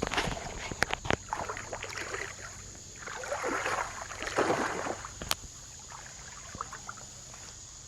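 Shallow creek water splashing and swishing, with two longer surges of splashing in the middle, a few sharp knocks and clicks near the start and one more a little after the middle.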